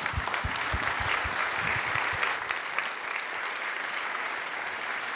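Audience applauding, easing off slightly about halfway through.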